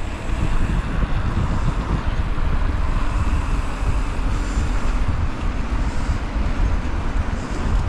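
Steady rushing wind noise on a body-mounted action camera's microphone while cycling, with road and traffic noise mixed in.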